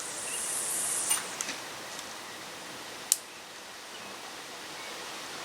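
A low cast with a carp rod: fishing line hisses off the reel for about a second, followed by a few light clicks and one sharp click about three seconds in, over a steady outdoor hiss.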